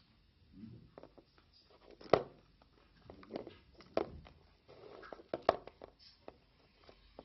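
Irregular knocks and clicks of small objects being handled, the sharpest about two seconds in and again about five and a half seconds in.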